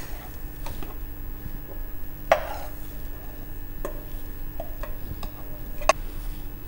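A few scattered light taps and clicks of a spoon against a plate as spices are scraped off into a food processor bowl, with one louder knock and a short scrape about two seconds in.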